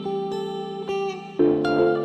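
Background music: plucked guitar playing notes and chords, with a new louder chord about one and a half seconds in.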